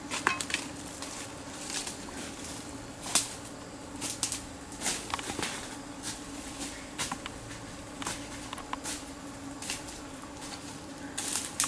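Footsteps crunching through dry leaf litter and brushing through ferns and undergrowth, with irregular sharp cracks of snapping twigs and leaves, over a steady faint hum.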